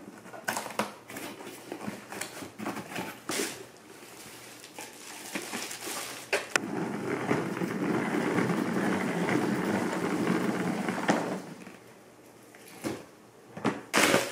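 Plastic salad spinner being spun by hand: its basket whirs steadily for about four or five seconds, then stops suddenly. Before it, clicks and rustles of a cardboard box and packaging being opened; near the end, crackling of bubble wrap being handled.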